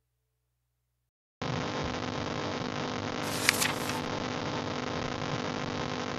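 A single short, sharp page-flip rustle from a digital flipbook turning a page, about halfway through. Under it is a steady hiss with a low hum that starts about a second and a half in, after near silence.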